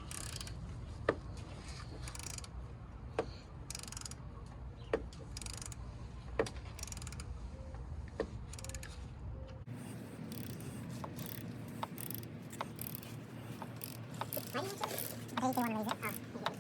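Hand wrench working metal fittings on a car's engine-bay AC parts: sharp metallic clicks every second or two over a low steady hum. The hum stops abruptly about ten seconds in.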